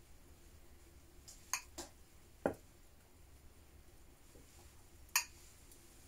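Faint handling of earthenware bowls: four light clicks and knocks as clay dishes are handled while seasoning is pinched onto sliced pork, two quick clicks close together, then a duller, louder knock, and one more sharp click near the end.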